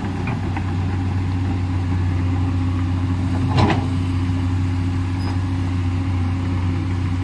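Komatsu PC210LC excavator's diesel engine running steadily, with a single knock about three and a half seconds in.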